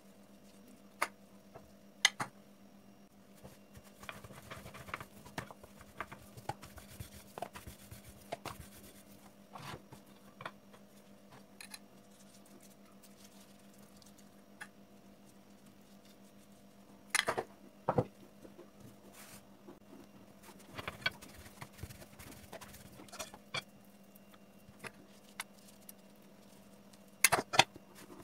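Scattered light clicks and taps of a utensil against a saucepan and plate as melted fat is spread over a rolled sheet of dough. There are louder clusters of knocks on the granite counter past the middle and again near the end, over a steady low hum.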